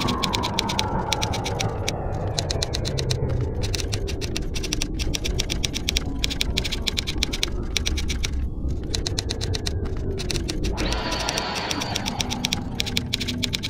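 Rapid, even clicking over a low rumble in the soundtrack, with a falling tone at the start and a held chord coming in about eleven seconds in.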